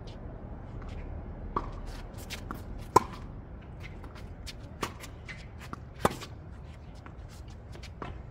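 Tennis rally: a ball struck by rackets with sharp pocks about every second and a half, the loudest about three seconds in. Light shoe scuffs and footsteps on the hard court fall between the hits.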